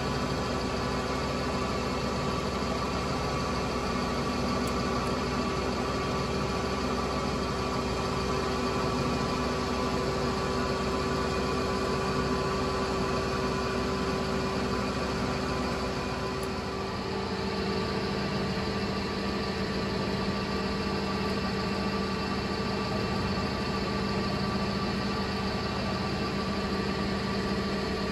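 ESTARTA 312 centerless grinding machine running steadily, a constant machine hum with several held tones over a noise bed. About 16 s in, the hum changes: a higher tone drops out and a lower one comes up.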